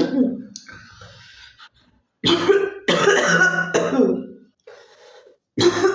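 A girl coughing: one cough at the start, then a run of three loud coughs from about two seconds in, and another cough beginning near the end.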